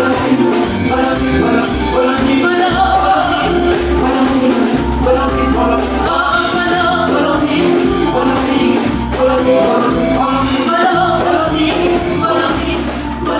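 Church worship music: voices singing over a band with bass and drums, in a steady beat.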